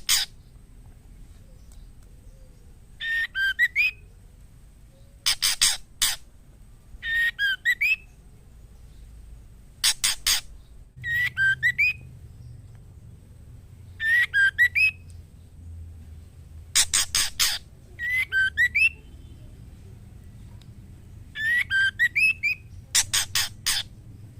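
Female white-rumped shama calling. Short whistled phrases of rising and falling notes alternate with harsh, rasping bursts of three or four quick notes, one or the other every few seconds.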